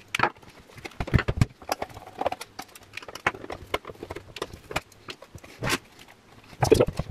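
Irregular clicks and knocks of a stripped stereo amplifier's sheet-metal chassis and hand tools being handled on a workbench, with louder knocks about a second in and again near the end as the chassis is tipped up on end.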